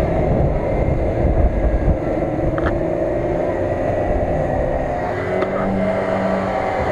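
Off-road 4x4 engines working under load through mud and icy water: a Jeep Cherokee XJ's engine revving up and down as it climbs, then, about five seconds in, a second vehicle's engine held at a steadier pitch.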